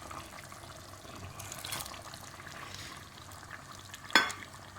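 Pieces of smoked fish going into a pot of soup, with soft liquid splashing and sloshing, then one sharp clink of a pot or utensil about four seconds in.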